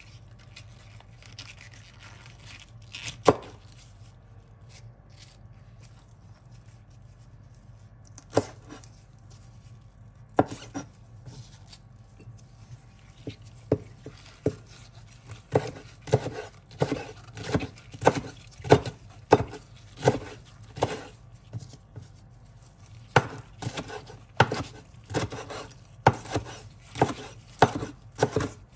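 Chef's knife chopping black wood ear mushrooms on a bamboo cutting board: a few separate knocks of the blade on the board at first, then steady chopping at about two strokes a second from about halfway through, with a brief pause before it resumes.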